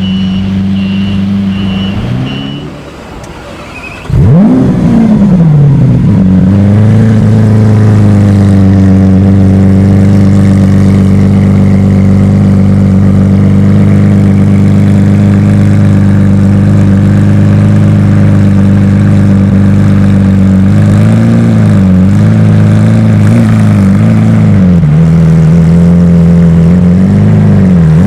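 A Lamborghini's engine starts about four seconds in with a loud flare of revs that sweeps up and falls back, then settles to a steady fast idle. A few light throttle blips come about three-quarters of the way through. Before the start, an idling engine note dies away.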